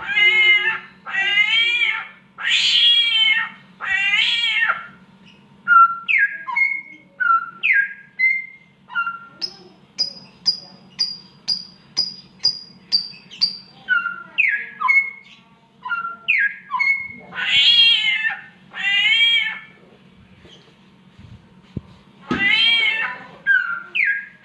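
A samyong songbird mimicking the yowling of cats in heat: long meow-like calls that bend in pitch, alternating with its own short swooping whistles. Near the middle comes a quick run of about ten short, high repeated notes.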